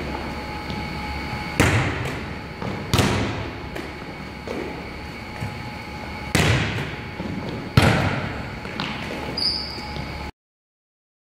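Volleyballs being struck in a gym drill: four loud, sharp hand-and-forearm contacts on the ball in two pairs, each a hit followed about a second and a half later by the return, ringing out in the hall's echo, with a few softer contacts between. The sound cuts to dead silence near the end.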